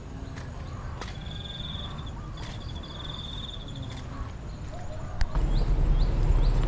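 Insects trilling in short bursts with occasional footsteps on a dirt path. About five seconds in, the loud low rumble of an approaching train on an electrified railway line sets in and keeps building.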